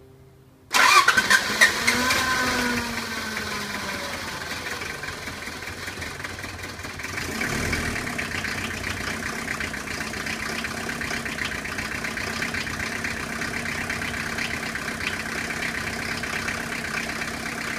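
Freshly rebuilt Toyota L-series 2.2-litre four-cylinder diesel starting: it fires suddenly about a second in, revs up and falls back over the next couple of seconds, then settles into a steady idle.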